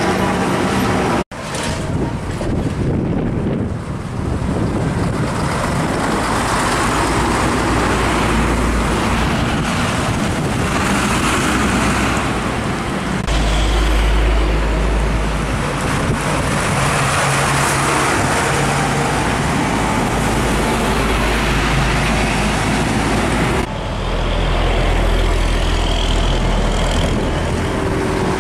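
Old heavy diesel trucks driving past on a road, with loud, steady engine rumble and tyre noise amid other traffic. The sound drops out for an instant about a second in and changes abruptly again near the end.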